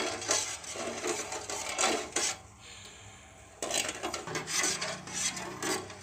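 Perforated steel skimmer scraping and stirring against the bottom of a stainless steel kadai of sugar syrup, a rasping scrape that pauses for about a second midway.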